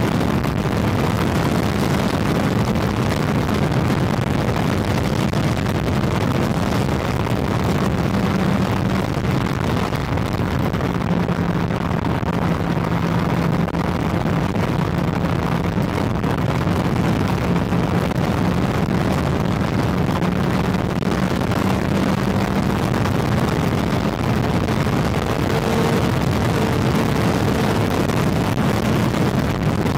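Honda CB400 motorcycle engine running steadily at highway cruising speed, around 100 km/h, its drone holding an even pitch, with wind rushing over the bike-mounted microphone.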